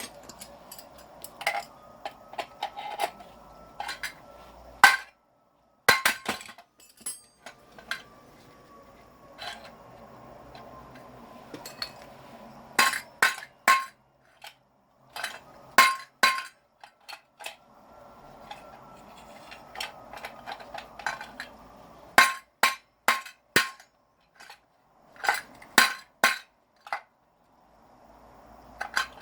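Metal parts of a scrapped electric motor being struck and knocked about, probably while it is stripped for its copper windings: irregular sharp metallic knocks and clinks, some in quick runs of several, over a low steady hiss.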